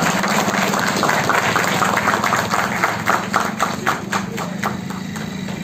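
Crowd applauding, the clapping thinning to a few scattered claps near the end, over a steady low hum.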